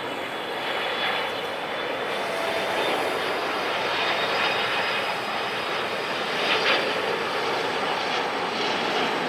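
Jet engines of an Asiana Airbus A330-300 landing: a steady, loud rushing noise with a faint high whine.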